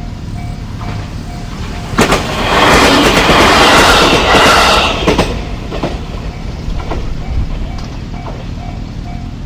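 Japanese railway level crossing alarm ringing its steady 'kan-kan' at about two and a half dings a second. About two seconds in, a train passes over the crossing, loud for about three seconds with sharp clacks of wheels over the rail joints, then fades while the bell keeps ringing.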